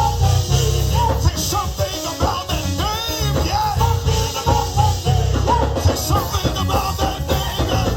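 Gospel band music: an organ playing quick, bending runs over a steady bass line and drums.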